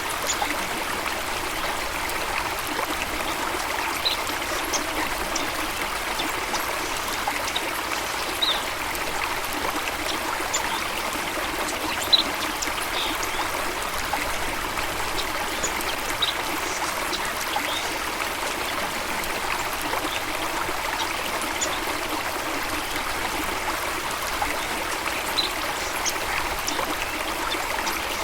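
Flowing stream water running steadily, with short high-pitched sounds scattered through it and one brief louder splash-like peak about twelve seconds in.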